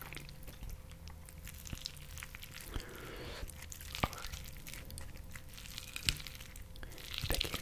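Close-miked chewing, with scattered sharp clicks and taps as a wooden fork picks at a fried fish fillet on the plate. A cluster of clicks comes near the end.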